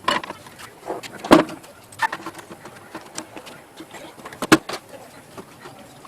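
A run of sharp knocks and clicks from hard parts being handled, with the loudest knocks about a second in and about four and a half seconds in, and lighter ticks between.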